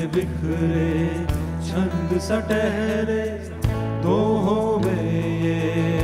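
A live Indian fusion rock band playing a slow song, a man singing a wavering melody into the microphone over long held low bass notes and occasional drum strikes.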